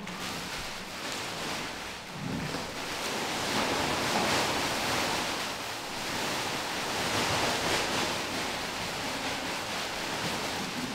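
A dense rushing noise, like surf, swelling and easing in slow waves, loudest about four seconds in and again about seven seconds in.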